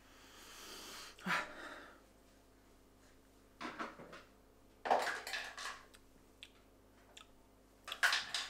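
A man sipping freshly brewed coffee from a ceramic mug: several short slurps and breaths, with pauses between them.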